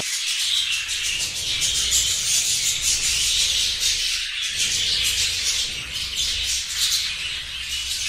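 A flock of budgerigars chattering continuously, many short, high chirps and squawks overlapping.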